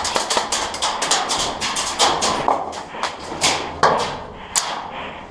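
Airsoft gunfire: a rapid, irregular string of sharp clicks and cracks from guns shooting.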